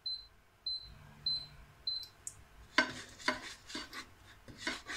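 Glass-top hob's touch controls beeping four times in quick succession as the heat is turned up. Then, from about three seconds in, a spoon scrapes and stirs in a frying pan with oil, rice and paprika, in strokes about two a second.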